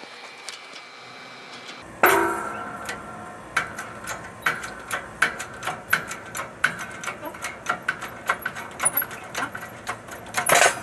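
Metal-on-metal work on a steering knuckle and hub: a sharp metal clank about two seconds in, then a run of irregular ticks and clinks. Louder, denser metal clatter starts just before the end.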